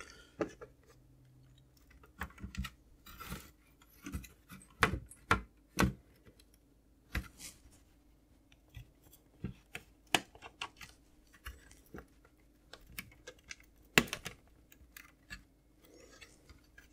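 Irregular small clicks, knocks and scrapes of plastic and circuit board as a wedged Amiga A600 motherboard is worked and pried loose from its plastic bottom shell by hand.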